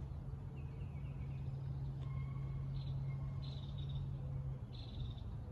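Birds chirping in several short high calls over a low steady hum that fades away about four and a half seconds in.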